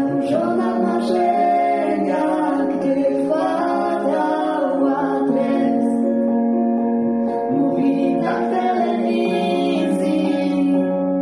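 A young girl singing into a handheld microphone over a guitar backing track, with long held notes.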